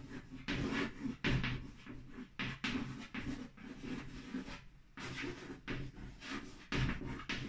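Chalk writing on a blackboard: a quick run of short, scratchy strokes and taps as cursive letters are written, with brief gaps between them and one clear pause a little past halfway.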